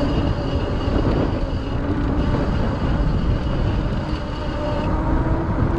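Wind rushing and buffeting over a bicycle-mounted action camera's microphone while riding, with road noise underneath. A faint high whine runs along with it and stops about five seconds in.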